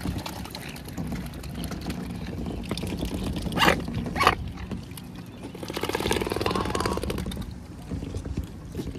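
Mute swans gathered close on a floating pontoon at the water's edge, over a steady low rumble. Two short sharp sounds come a little under halfway through, and a buzzy nasal call about two-thirds of the way in.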